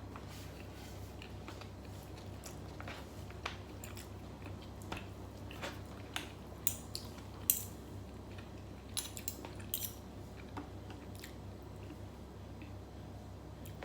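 Eating at a table: chewing with scattered small clicks of cutlery against a dish, most of them between about six and ten seconds in, over a steady low hum.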